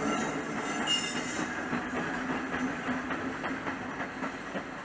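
A train running on the rails out of sight, its wheels clicking over rail joints, with a brief high wheel squeal about a second in; the sound fades gradually as it moves away.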